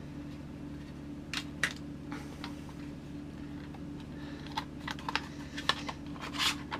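Scattered light clicks and scrapes of a hard drive being slid out of an external drive enclosure, over a steady low hum.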